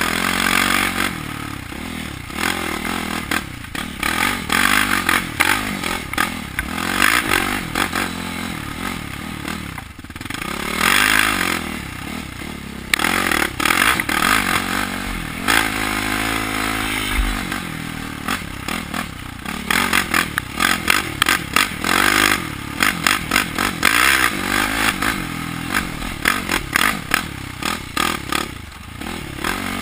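Sport ATV engine revving up and dropping back again and again as the throttle is worked through the trail's turns, with many sharp knocks and rattles from the rough ground.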